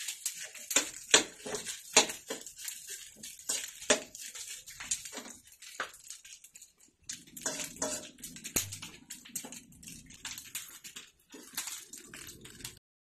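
Metal spatula scraping and tapping against a wok while stir-frying fried rice: a quick run of scrapes that thins out after about six seconds. The sound cuts off suddenly near the end.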